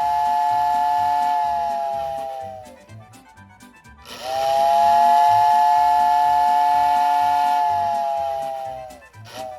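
American Flyer No. 577 whistling billboard's whistle blowing two blasts of a two-tone, steam-style chord. The first ends a few seconds in with its pitch sagging away. After a short pause the second sounds for about five seconds, rising in pitch as it starts and sagging as it winds down, as the control button is pressed and released.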